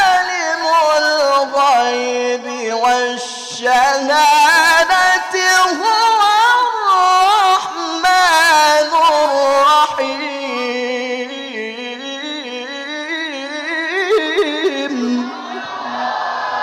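A male qari reciting the Qur'an in the melodic tilawah style into a microphone: one long melismatic phrase full of rapid ornamental pitch turns, sung loudly. After about ten seconds it settles into a softer, steadier held line that ends near the close.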